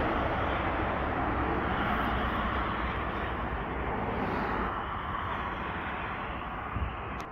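Steady engine rumble from a passing vehicle, slowly fading away, with a light click near the end.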